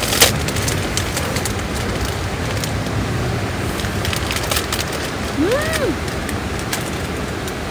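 A person eats a hot, juice-filled grilled button mushroom: scattered mouth and chopstick clicks, and a short rising-and-falling 'mm' of the voice about five and a half seconds in. A steady rushing background noise runs underneath.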